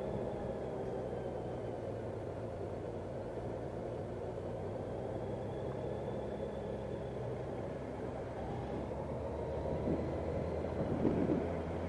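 Motorcycle engine running at low, steady revs at slow speed downhill, with road and wind noise; a few brief bumps near the end.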